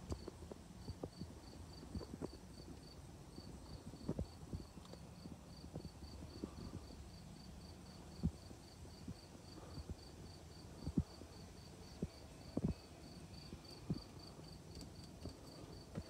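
An insect chirping steadily outside, about four short high chirps a second, starting about a second in. Scattered faint knocks and handling rustle, a few a little louder in the second half.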